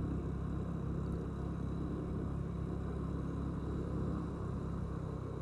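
Steady low engine and road rumble of a vehicle driving slowly along a paved road, with a faint thin high tone above it.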